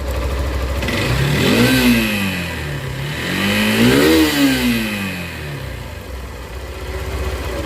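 Hero three-wheeler's engine idling and revved up twice, each rev rising to a peak and sinking back, the second peaking about four seconds in, then settling to a steady idle.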